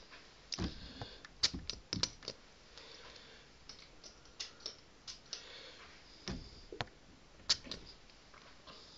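Scattered light clicks and knocks of handling, irregularly spaced with quiet between, about a dozen in all.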